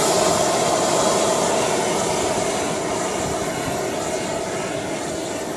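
JetCat P-80 model jet turbine running steadily, a thin high whine over a broad rushing noise, fading slightly.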